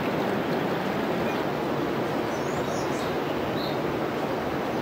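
Steady rushing outdoor ambient noise, with a few faint high bird chirps in the middle.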